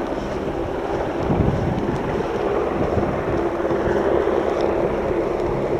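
Helicopter running nearby, a steady drone, with wind on the microphone.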